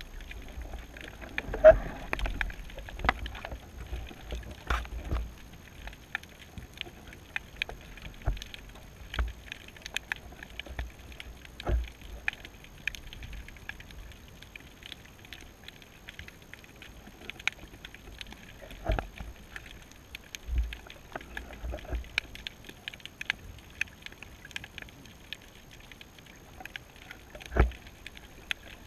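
Underwater sound picked up by a camera on a shallow seabed: a constant faint crackle of scattered clicks over the wash of the surge, with a few louder knocks and thumps spread through, the loudest about two seconds in.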